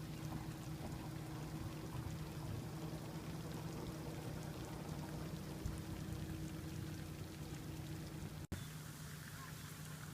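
Food sizzling and crackling on a barbecue grill, an even hiss with a steady low hum beneath it.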